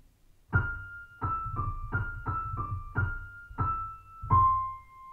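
Short intro jingle of keyboard notes: about eight quick struck notes stepping down in a repeating pattern, then a lower final note held and left to ring out.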